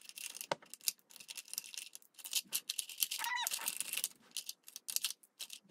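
Lip pencils clicking and clattering against each other and the clear acrylic holder as they are rummaged through and pulled out, with one brief squeak about three seconds in.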